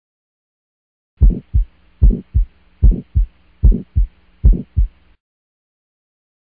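Heartbeat sound effect: five double thumps, lub-dub, a little under one pair a second, with a faint hum under them. It starts about a second in and stops about five seconds in.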